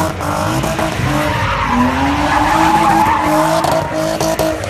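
A car engine held at high revs while its tyres skid and screech, as in a drift or burnout. The revs dip briefly about two seconds in, then climb back.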